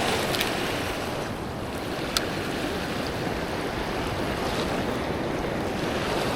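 Heavy surf washing over a rock ledge: a steady rush of whitewater, a little louder at the start, with one faint sharp click about two seconds in.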